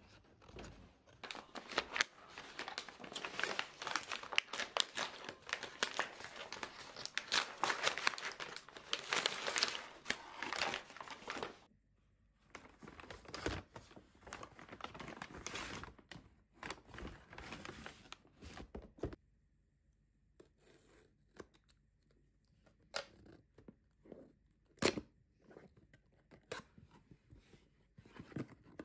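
Kraft paper mailer bag being torn open and crinkled, dense and continuous for about the first twelve seconds. After that, sparser paper rustles and a few sharp taps as a cardboard product box is handled and its flap opened.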